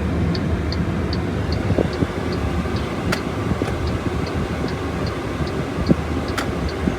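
MG RX8's 2.0-litre turbocharged four-cylinder engine running with a steady low rumble. A light regular ticking repeats about two and a half times a second over it, with two sharper clicks, one about three seconds in and one near the end.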